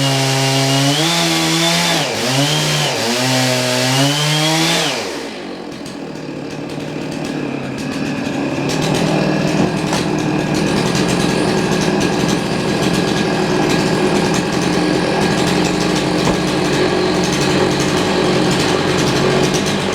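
Band sawmill's gas engine running at high speed as the blade cuts through the log, its pitch sagging briefly under load about two seconds in. Around five seconds in it is throttled down and settles into a steady idle.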